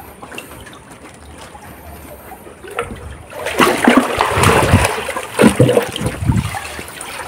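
River water splashing as someone scoops through it for shrimp. A faint trickle for the first few seconds, then a loud stretch of splashing starting about three and a half seconds in, followed by a few separate splashes.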